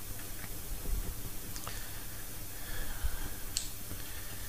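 Silicone pastry brush dabbing melted butter onto sheets of filo pastry: soft brushing and dabbing with a few small clicks, over a low steady hum.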